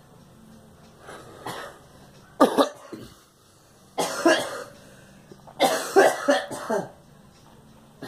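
A woman coughing in fits: two light coughs about a second in, then three louder bursts of several coughs each, the last and longest lasting about a second.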